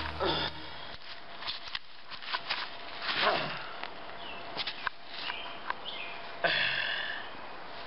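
Scattered crunches and scrapes on gravel as someone moves and sits down on a creek-bank, with a few short calls, one sliding steeply down in pitch. Music fades out just after the start.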